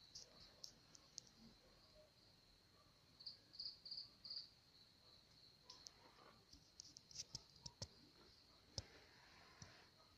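Faint steady high trill of crickets, with a short run of louder chirps about three to four seconds in. Scattered faint clicks and taps come in the second half.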